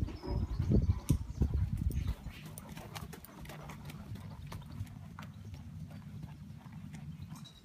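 Hoofbeats of a cob trotting on loose arena footing: dull rhythmic thuds, loudest in the first two seconds and then fainter and steady.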